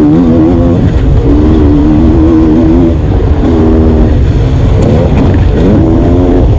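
Sherco 300 SE-R two-stroke dirt bike engine heard from on board while riding a motocross track, its pitch climbing and dropping several times as the rider works the throttle and gears. A heavy low rumble of wind on the microphone runs under it.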